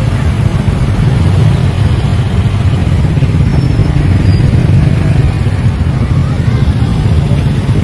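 Engines of several scooters and small motorcycles riding slowly past at close range, a loud, steady low engine sound.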